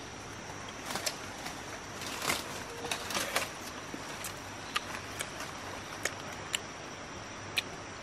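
Tropical forest ambience: a steady high-pitched insect drone, with rustling and handling from about one to three and a half seconds in, then a handful of short sharp clicks spaced roughly half a second to a second apart.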